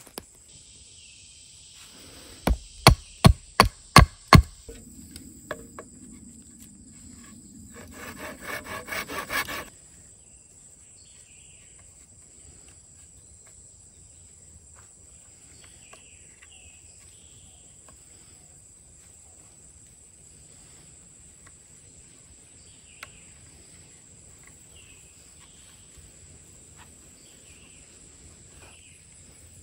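Hatchet blows on wood: six sharp knocks, about three a second, then a short run of fast rasping strokes that grow louder before stopping.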